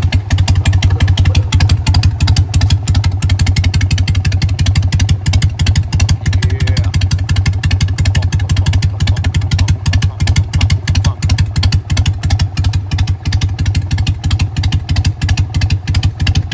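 Harley-Davidson Sportster 883's air-cooled V-twin engine running at a steady idle, with a fast, even train of firing pulses.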